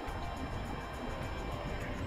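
Music playing over a steady low rumble.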